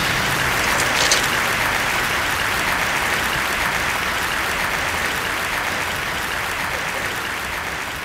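Applause from a crowd: dense, steady clapping that slowly fades away.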